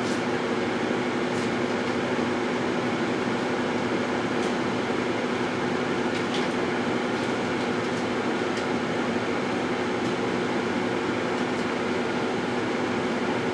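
Microwave oven running with a steady hum while heating a batch of blackberries, with a few faint ticks now and then.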